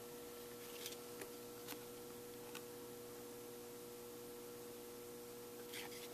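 Faint, scattered clicks of trading cards being handled and slid off a stack, over a steady electrical hum.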